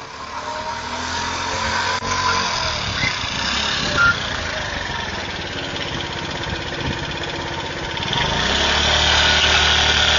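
A motor vehicle's engine running steadily, growing louder about eight seconds in.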